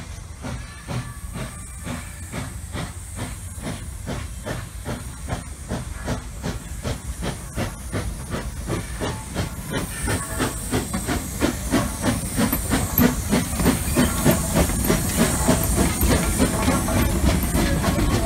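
Detroit & Lima Northern 4-4-0 steam locomotive working a passenger train, its exhaust chuffing in a steady rhythm that grows louder as it approaches. A steady steam hiss joins from about ten seconds in.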